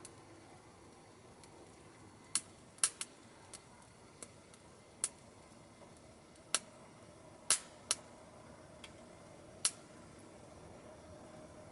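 Wood fire burning in a small Captain Stag KaMaDo Smart Stove Delta, giving sharp, irregular pops and cracks, about a dozen of them, over a faint steady hiss.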